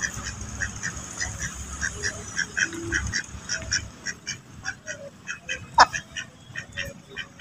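Mallard ducks quacking in a run of short quacks, about three a second, with one louder quack about six seconds in.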